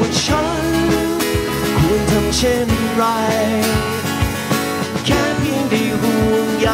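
Live acoustic band playing a song: strummed acoustic guitar and piano accordion, with a male voice singing.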